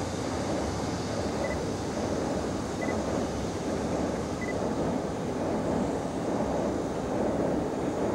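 Steady rushing outdoor noise, wind on the microphone mixed with a low distant rumble, with three faint short high peeps in the first half.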